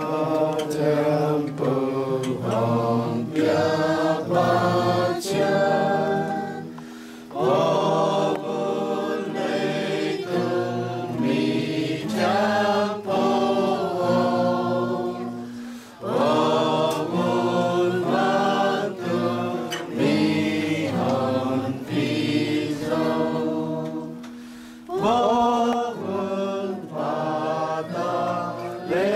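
A group of people singing a hymn together, in phrases with short breaks about every eight seconds.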